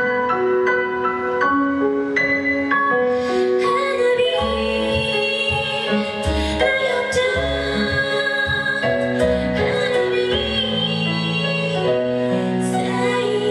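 J-pop song performed live: a female voice singing a melody over instrumental accompaniment, with a bass line coming in about four seconds in.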